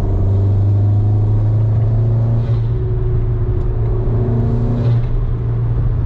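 Audi S3 (8Y) 2.0-litre turbocharged four-cylinder fitted with a DBV2 4-inch downpipe, cruising at about 3,000 rpm at 60 mph. Heard from inside the cabin, it is a steady low exhaust drone over road noise.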